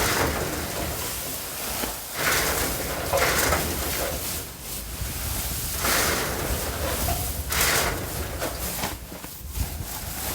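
Old corn silage being thrown down inside a silo: a run of rough scraping, rustling bursts, one every second or so.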